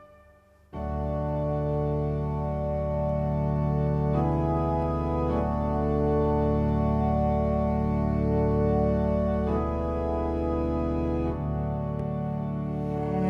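Sustained organ chords played on a Korg Kronos keyboard, coming in about a second in after a brief near-silent pause. The held chords change every few seconds.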